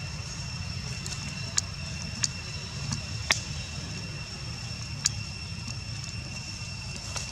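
Outdoor ambience: a low steady rumble and a steady high whine, broken about five times by short sharp crackles of dry leaves as the monkeys move and handle leaves in the leaf litter.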